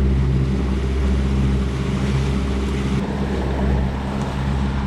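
A boat's motor running steadily at cruising speed with the boat under way, over a wash of wind and water noise.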